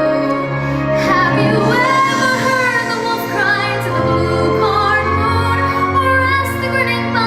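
A young girl singing solo with instrumental accompaniment, holding long notes that waver in pitch.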